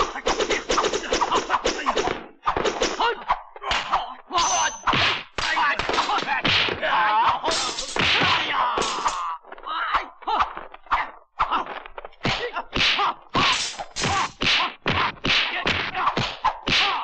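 Kung fu fight sound effects: rapid punch and kick thwacks, several a second, one after another, with fighters' yells and grunts in between.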